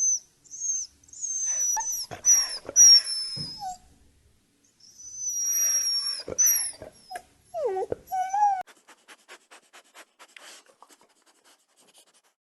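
A dog whining: a series of high, thin whines that fall in pitch, then a lower sliding whimper. These are followed by a fading run of quick faint ticks, about six a second.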